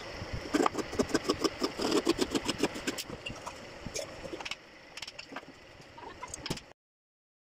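Quick repeated rasping strokes of a thin hand blade scraping and cutting in a slot in an MDF board. The strokes grow weaker after about four and a half seconds and cut off abruptly near the end.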